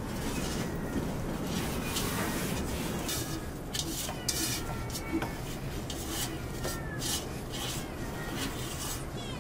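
Hands working a large mass of nan dough on a floured wooden board, pressing it out and tearing off pieces to portion it into balls. It makes a steady rubbing and patting sound with a few soft knocks.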